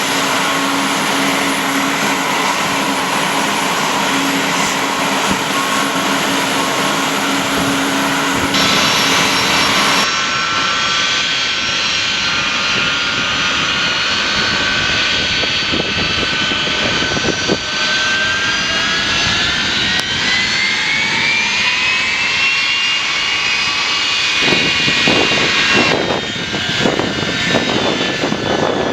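Boeing 757-200's jet engines running with a steady roar and whine. A few seconds past the middle, the whine rises in pitch as the engines spool up, then holds.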